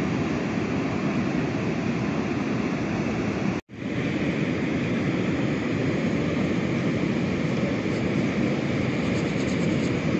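Steady roar of ocean surf breaking on the beach, mixed with wind on the microphone; it cuts out for an instant about a third of the way in and carries on.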